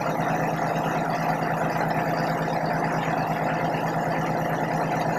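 Heavy wrecker tow truck's diesel engine idling, a steady unchanging low hum.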